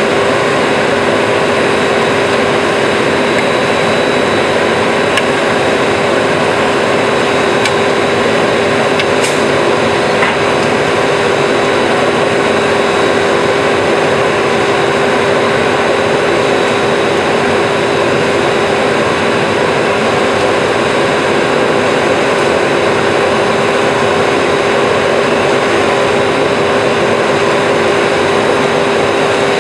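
Concrete mixer truck's diesel engine running steadily while its drum turns and discharges down the chute, a loud unbroken drone with a constant hum. A few faint clicks of hand tools sound through it.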